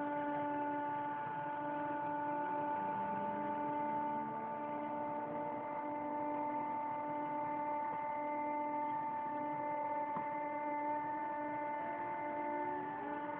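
Coils driven by a breadboard PWM circuit, giving a steady electrical whine with several overtones. Near the end the pitch begins to rise.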